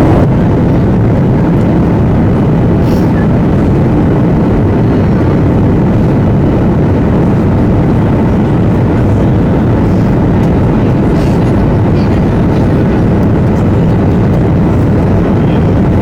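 Steady in-cabin noise of a Boeing 737-800 on approach: its CFM56-7B engines and airflow making an even, low rumble.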